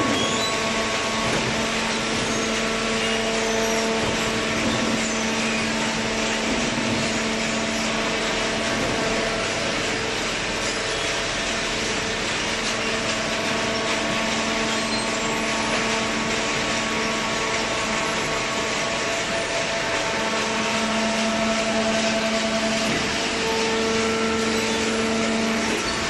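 Steady drone of industrial machinery running, a constant hum with an even hiss over it, from a hydraulic cardboard baler line. The hum swells and fades a little but never stops.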